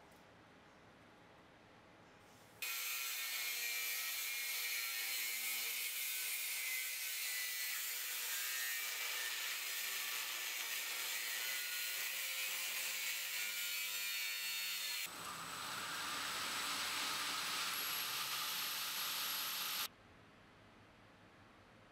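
Angle grinder with a cut-off wheel cutting through AEB-L steel bar stock: a steady high-pitched whine and hiss that starts abruptly a couple of seconds in, changes character about 15 seconds in, and stops abruptly near 20 seconds.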